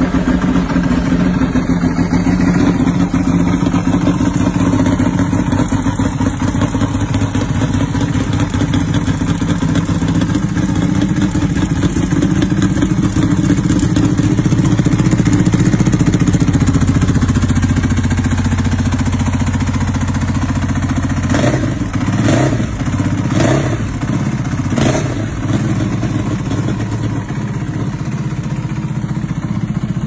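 Ducati 1299 Panigale Superleggera's Superquadro V-twin idling through its Akrapovič exhaust just after start-up, the idle note dropping a little about halfway. About two-thirds in, four short throttle blips in quick succession, then back to idle.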